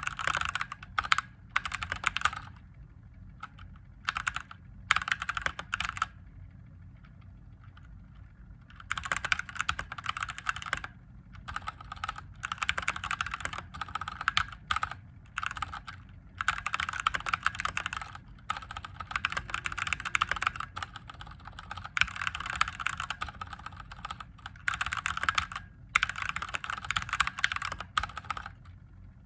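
Mechanical keyboard with Gateron Yellow linear switches being typed on in bursts of rapid keystrokes, with short pauses between the runs. A faint steady low hum runs underneath.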